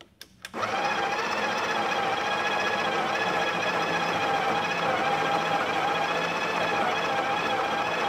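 The Breville Barista Express's built-in conical burr grinder starts about half a second in and runs steadily, grinding espresso beans into a portafilter.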